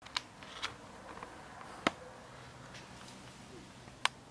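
Quiet room tone broken by a few short, sharp clicks, the two strongest about two seconds in and just before the end.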